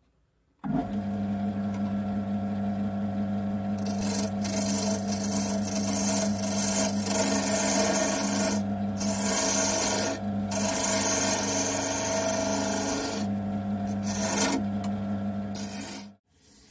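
Wood lathe motor switched on about a second in and running with a steady hum while a hand-held turning tool cuts a spinning wooden blank into a rounded shape. The hiss and scrape of the cut starts a few seconds in, with a few short pauses, and the sound cuts off near the end.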